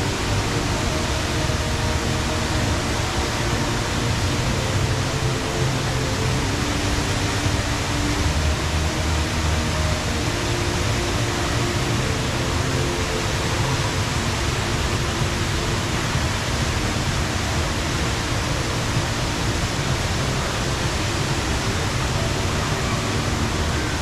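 Steady, even rush of falling water from the Rain Vortex, the indoor waterfall at Singapore's Jewel Changi Airport, a column of water pouring from the glass roof into a basin far below.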